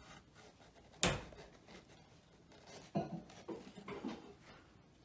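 Tabletop handling sounds as a glued, paper-covered license plate is picked up and worked by hand: a single sharp knock about a second in, then a few soft rubbing and tapping noises.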